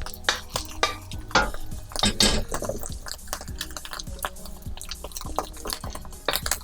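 A cooking utensil scraping and tapping against a hot pan as a loose egg is stirred in oil, in irregular strokes with a few louder knocks.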